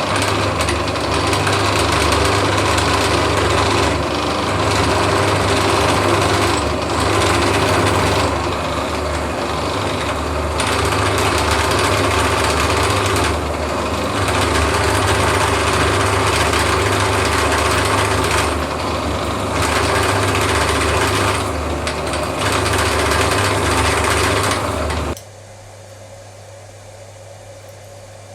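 Home-built CNC mill cutting aluminium: a loud machining noise that eases off briefly every few seconds and comes back. About 25 seconds in, the cutting stops suddenly and only a steady whirring hum remains.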